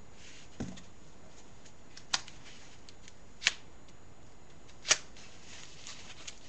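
Hands handling packaging and parts while unboxing: light rustling, a soft thump just over half a second in, then three sharp clicks about a second and a half apart.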